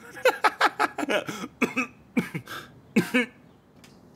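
A person's voice in a run of short, breathy bursts that are not words, then quieter for the last second or so.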